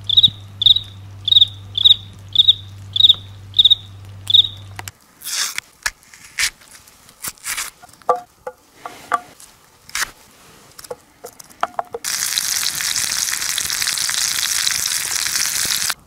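A cricket chirps steadily, about eight high chirps over five seconds, with a low hum under them that stops abruptly. Then a pocket knife clicks and cuts through an onion, and about twelve seconds in a steady sizzle of food frying in a pan starts.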